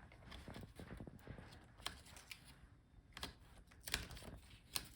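Quiet, scattered clicks and taps of small plastic parts being handled inside an opened laptop, as the latches of the motherboard's ribbon-cable connectors, including the keyboard's, are flipped and the cables pulled, with a few sharper clicks about two, three and four seconds in and near the end.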